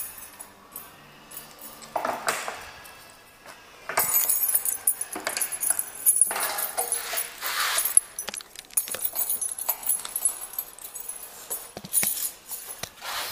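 Keys jangling and gear rustling as it is handled, in irregular bursts, loudest from about four to eight seconds in.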